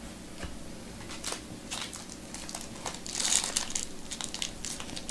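Foil trading-card pack crinkling and crackling in the hands as it is torn open, loudest about three seconds in.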